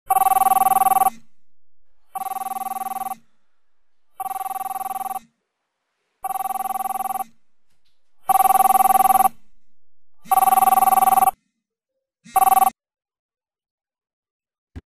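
Smartphone ringing with an incoming call: seven rings of about a second each, about two seconds apart, some louder than others, the last one cut short.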